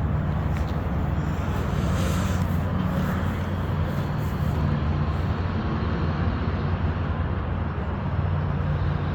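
Steady low hum of a motor vehicle's engine running, with a constant outdoor rumble around it.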